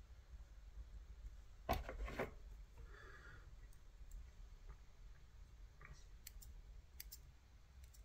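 Scissors opening and closing on a streamer fly's synthetic dubbing: faint sharp snips and clicks, with a slightly louder double scrape about two seconds in.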